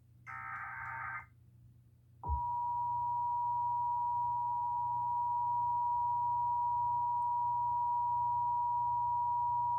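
Emergency Alert System encoder: a SAME header data burst, a harsh warbling digital screech lasting about a second, then about two seconds in the EAS two-tone attention signal (853 and 960 Hz together) starts, a loud steady high tone that holds.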